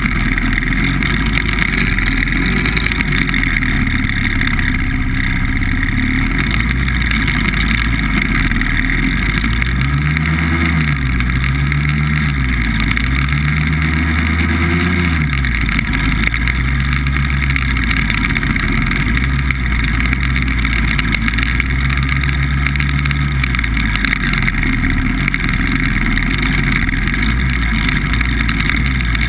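BBV2+2 hovercraft's engine and fan running at speed, its note rising and falling in several swells around the middle.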